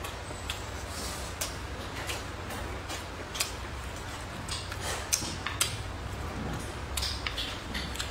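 Wooden chopsticks clicking and scraping against a ceramic bowl while scooping up fried rice: a dozen or so light, irregular clicks over a low steady hum.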